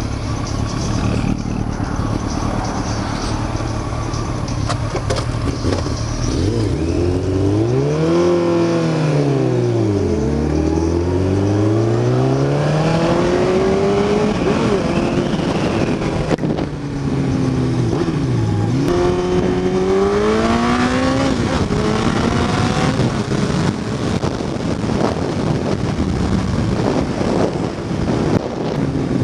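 Kawasaki ZX14 sport bike's inline-four engine under way, its pitch climbing and falling in long sweeps as it accelerates and shifts, twice in the middle, over steady wind rush.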